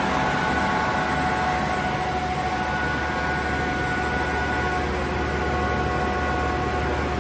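Kaeser SK 25 SFC 15 kW rotary screw air compressor with inverter drive running under load as it builds pressure: a steady whine over a constant low hum.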